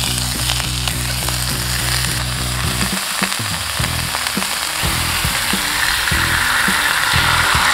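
Sizzling bulalo: beef shanks, corn and greens frying in a hot cast-iron skillet, a steady sizzle that grows louder in the last couple of seconds.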